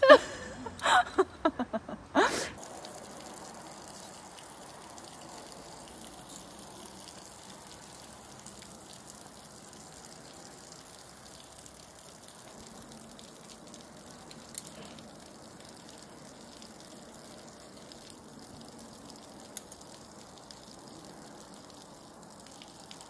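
A few short, loud bursts of a woman's voice in the first two seconds, then a steady faint outdoor noise with no clear source, broken only by two small clicks.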